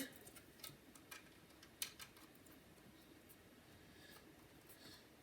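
Near silence with a few faint clicks and light taps of small hard parts being handled, the clearest about two seconds in.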